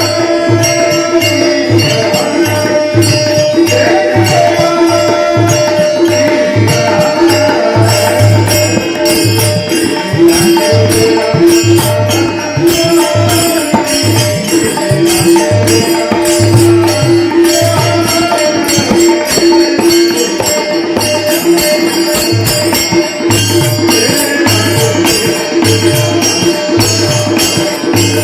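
Bhajan music: tabla playing a steady rhythm under a held tone, with dense quick percussion strokes over it.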